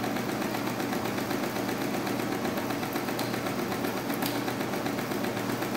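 Friden S10 electromechanical calculator running on and on, its electric motor and mechanism cycling in a steady, fast clatter, with a couple of sharper clicks about three and four seconds in. The add key has popped back up but the machine keeps running with the other keys locked: the mechanism has not released from the add state.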